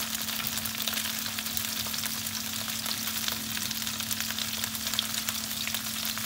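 Shrimp sizzling in hot oil in a frying pan: a steady, dense crackle of fine pops with a steady low hum underneath.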